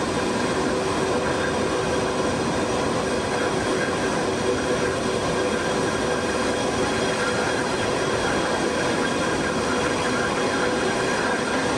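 Steady turbine noise from a parked military transport jet: an even rushing hiss with several high, level whining tones over it.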